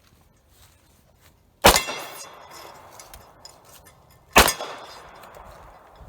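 Two handgun shots about two and a half seconds apart, each followed by a decaying echo.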